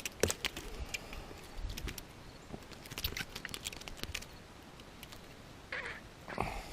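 Irregular light clicks and rustles of close handling, as of a freshly landed fish and tackle being handled, with two short soft hissing sounds near the end.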